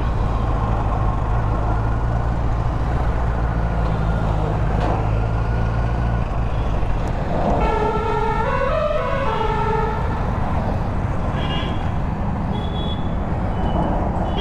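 Kawasaki Z900's 948 cc inline-four running steadily under way, with road and wind noise. About seven and a half seconds in, a vehicle horn in the traffic warbles down and up in pitch for about two seconds, and a few short high toots follow near the end.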